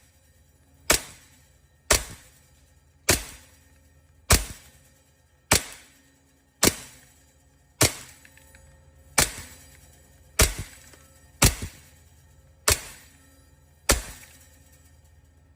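WE Hi-Capa gas blowback airsoft pistol firing about a dozen single shots at a steady pace of roughly one a second, each a sharp crack with the slide cycling, shot through a chronograph for an FPS test.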